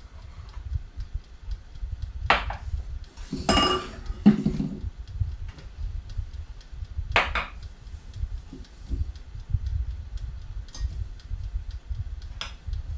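Metal spoon clinking and scraping against a small ceramic bowl and a stainless-steel mixing bowl while sifted flour is spooned out: a few separate clinks, with the longest, ringing one about three and a half seconds in.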